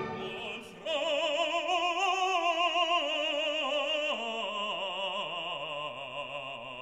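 Operatic singing: a voice with wide vibrato holding long notes that begin about a second in and step down in pitch twice.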